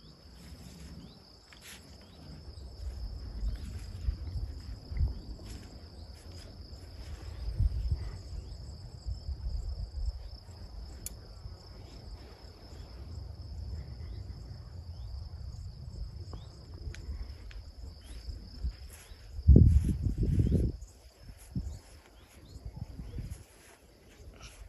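Meadow insects chirring steadily and high-pitched, over a low uneven rumble. A brief loud low rumble comes about 20 seconds in.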